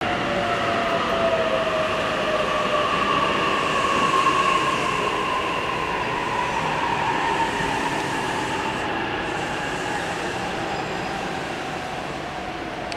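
Container freight train behind an EF65 electric locomotive rolling through a curve: steady rail noise with a high squeal from the wheels that slowly sinks in pitch.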